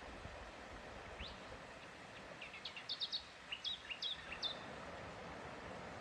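A small bird chirping: a quick run of short, high notes between about one and four and a half seconds in, over a steady outdoor hiss.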